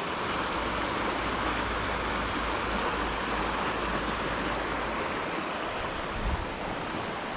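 Steady outdoor rushing noise, with a low wind rumble on the microphone that eases off about five seconds in and a brief soft bump a little after six seconds.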